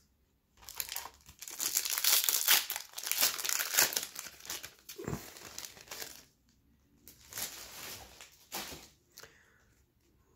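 Plastic wrapper of a baseball trading card pack being torn open and crinkled, loudest for the first few seconds, then a few softer, shorter rustles.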